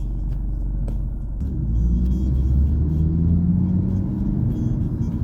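Car driving, heard from inside: engine and road rumble that grows louder about a second and a half in, with a steady low hum.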